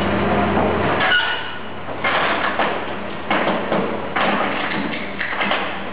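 Car-dismantling work noise: irregular metal clattering and thuds over machinery. A steady low hum stops about a second in.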